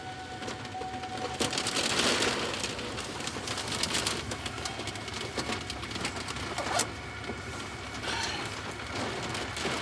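Heavy rain drumming on a pickup truck's roof and windshield, heard from inside the cab as a dense patter of fine ticks, with one sharper knock about two-thirds of the way in.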